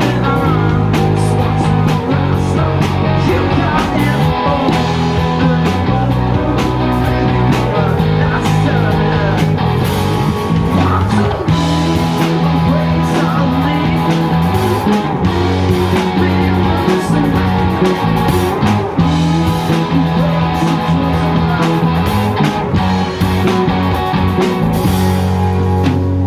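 A live rock band playing: electric guitars, bass guitar and drum kit with a lead vocal, the bass holding notes that change every second or two under a steady drum beat.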